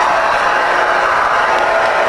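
Cobra 29LX CB radio receiving on channel 19, its speaker putting out steady, loud static.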